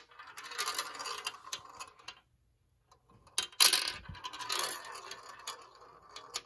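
A marble rolling and clattering through a plastic marble run for about two seconds. After a short pause it drops with a sharp clack, rolls and rattles on through the track, and ends with a last click.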